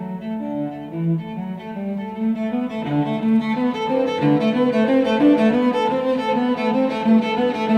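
Solo cello bowed in a quick run of short, stepping notes, growing a little louder and busier about three seconds in.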